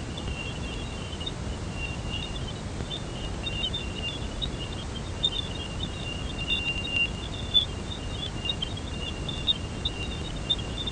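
Space radio or plasma-wave recording of the Jupiter system played back as sound: a low rushing hiss under a thin high whistle, with many quick high blips and crackles flickering over it.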